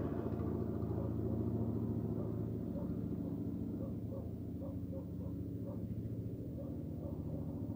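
An engine running steadily at idle, a low, even putter that eases off slightly.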